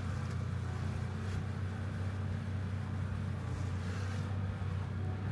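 The Ranger's engine running steadily as it drives along, a low even hum.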